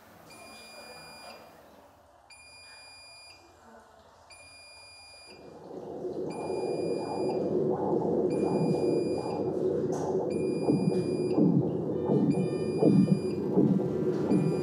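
Hospital equipment alarm beeping, a high tone sounding about once a second. About five seconds in, a louder low, pulsing sound comes in underneath.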